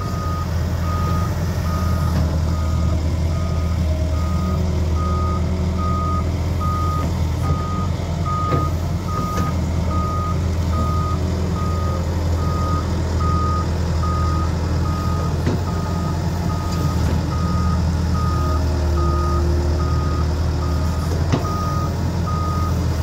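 Hyundai Robex 140W-9S wheeled excavator's diesel engine running steadily while its warning alarm beeps at one pitch, evenly, a little under two beeps a second. The machine is being test-run after its auto-throttle sensor was replaced.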